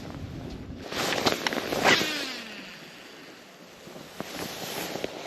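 Wind and water noise around a small fishing boat, with a quick cluster of knocks and rattles about a second in, followed by a short falling tone.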